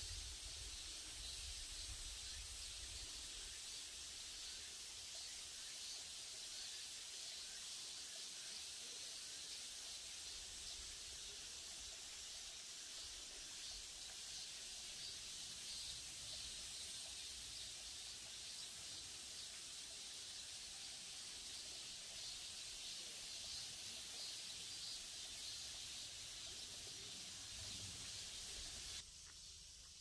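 Mountain-valley nature ambience: a steady high hiss with a low rumble underneath, which drops a little about a second before the end.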